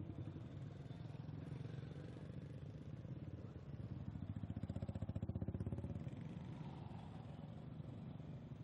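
Motorcycle engine running with a rapid, even pulse, growing louder about four to six seconds in and then easing off.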